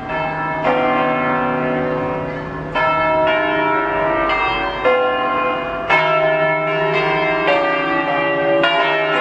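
Church bells ringing in a peal, several bells of different pitch struck one after another roughly once a second, each stroke ringing on and overlapping the next.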